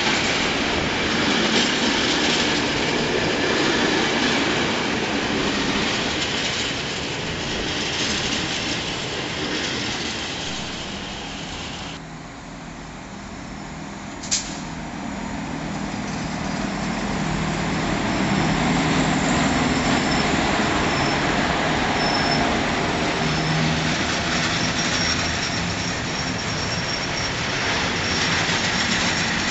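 A freight train's wagons rolling past close by, with wheels rumbling and squealing. After a cut about twelve seconds in, an FS class E656 electric locomotive hauling a container train approaches and passes, with one short sharp high sound as it comes in, a steady low hum, and faint high wheel squeal near the end as the container wagons roll by.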